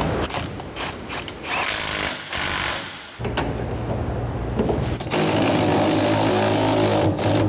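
Impact wrench hammering in several bursts, the longest and steadiest near the end, as it runs off a rear shock absorber's mounting nut on a pickup truck.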